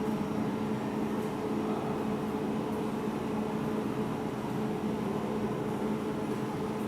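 Water pump of an OPT-JW200 desktop jewelry laser welding machine running with a steady hum as it fills the machine with purified water.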